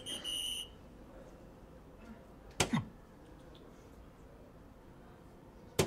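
Soft-tip darts striking an electronic dartboard: a sharp hit about two and a half seconds in and another at the very end. The machine's electronic hit chime beeps at the start and again right after the last hit.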